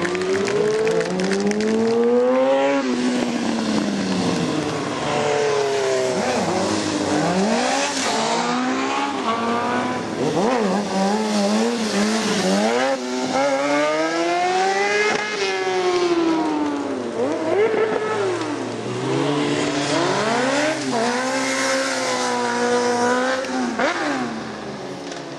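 Sportbike engine revved up and down again and again while the bike is held in wheelies, each rev a rising then falling pitch. It gets quieter near the end.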